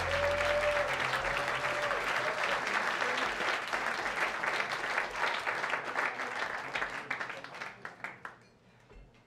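Club audience applauding with a long cheer in the first couple of seconds, as the band's last low notes die away. The clapping thins out and fades about eight seconds in.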